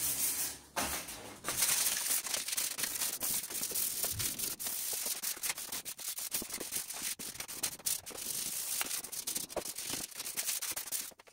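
220-grit sandpaper rubbed by hand in quick back-and-forth strokes over the painted metal rack and plastic fender of an ATV, scuffing the paint so the bedliner coating will adhere. There is a short break in the strokes just under a second in.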